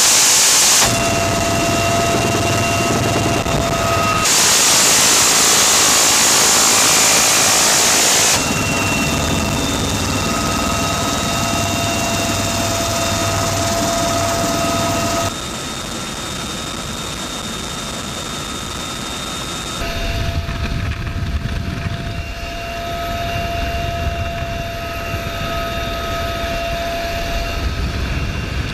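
Military helicopter in flight, heard from the open gunner's door: a steady turbine whine over the rotor and engine noise. An M134 minigun fires one long continuous burst from about four seconds in, lasting about four seconds, and a shorter burst ends about a second in.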